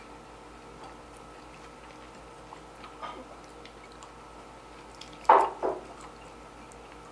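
Wet, squishy mouth sounds of someone eating, with two short louder sounds about five seconds in. A faint steady hum runs underneath.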